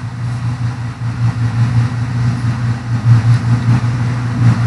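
A steady low mechanical hum with a gently pulsing beat and a faint hiss above it.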